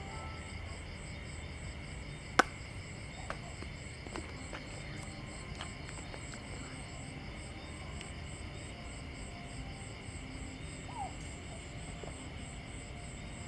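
Night insects chirping in steady, even pulses, about three a second, with one sharp click about two and a half seconds in.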